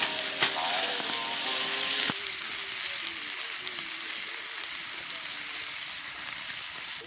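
Food sizzling as it fries over a camp cooking fire, a steady crackling hiss with a sharp tick about two seconds in.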